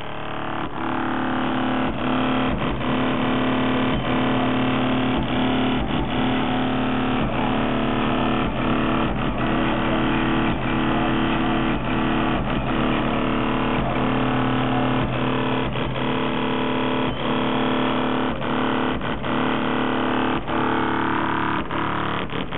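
Music with a steady beat playing loud through a car audio system with two 15-inch Kicker L7 subwoofers, heard from outside the SUV.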